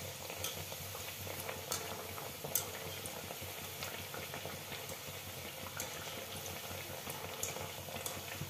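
Mathri dough discs deep-frying in hot oil in a kadai: a steady bubbling sizzle with scattered small pops.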